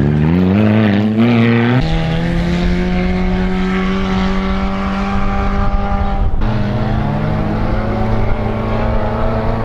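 Off-road race buggy's engine revving up, then held at high, steady revs. The sound changes abruptly about two seconds in and breaks off briefly about six seconds in before the steady running resumes.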